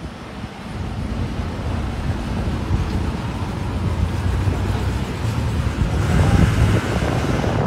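A motor vehicle's engine running, a low rumble that grows louder toward the end.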